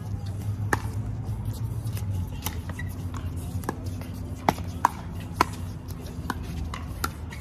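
Pickleball paddles striking a hard plastic pickleball in a fast rally: a string of a dozen or so sharp pops, some louder and some fainter, the loudest two just past the middle.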